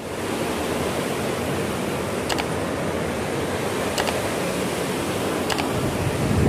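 Steady rushing noise with three faint clicks about a second and a half apart.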